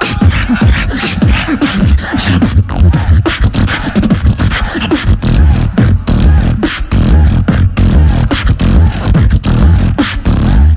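Solo beatboxing: a fast, steady rhythm of vocal kick and snare sounds with crisp hi-hat clicks, over a gliding vocal bass line that slides up and down in pitch.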